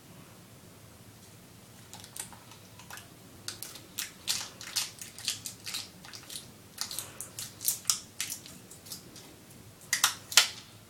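Adhesive tape being pulled off a roll and handled in a run of short, irregular rasps and crackles, starting about two seconds in, with the loudest pair near the end.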